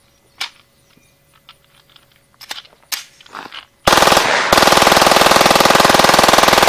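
A few faint clicks, then about four seconds in a fully automatic Glock 17 9 mm pistol opens fire in one long, very rapid burst that runs on without stopping.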